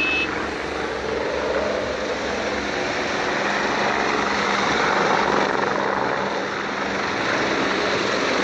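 Eurocopter EC145 helicopter's rotors and engines running as it lifts off and flies low, a steady rushing drone.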